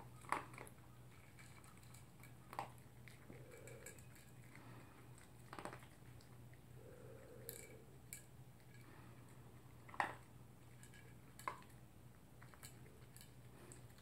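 A poodle eating from a plastic bowl: faint chewing with a handful of short, sharp clicks of food and teeth against the bowl, spread out every couple of seconds, over a faint steady low hum.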